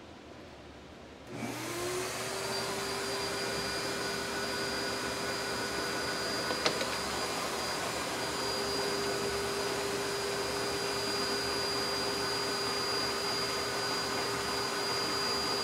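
Shop vac switched on about a second in, its motor spinning up to a steady whine and running on while it pulls a vacuum on the hydraulic tank. A single sharp click about halfway through.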